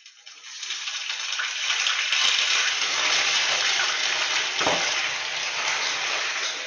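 Food sizzling in a hot frying pan: a steady hiss that builds over the first couple of seconds, with one short knock about two-thirds of the way through.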